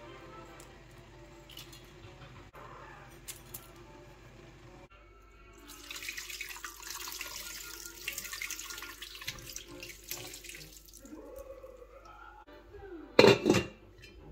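Water poured from a glass jug into an enamel stockpot over a whole raw chicken and vegetables, splashing for about five seconds. Near the end the pot's lid is set down with a loud clank.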